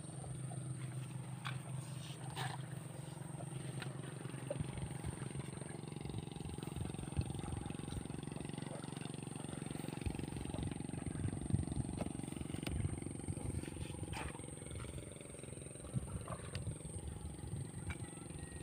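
An engine running steadily, with a few scattered clicks and knocks.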